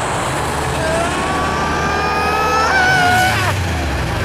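Cartoon vehicle racing sound effects: a steady low rumble under an engine whine that climbs slowly in pitch for a couple of seconds and breaks off about three and a half seconds in.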